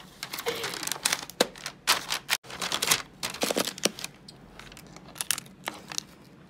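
Wrapping paper crinkling and rustling as it is folded and handled, in irregular crackles that die down after about four seconds, with a few sharp clicks later on.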